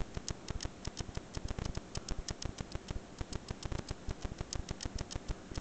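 Rapid, uneven clicking, several small clicks a second, from a computer mouse being used to move around and zoom a Google Earth map.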